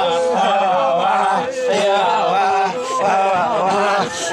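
A group of voices chanting a traditional Papuan song together, in held, wavering phrases that run on without a break.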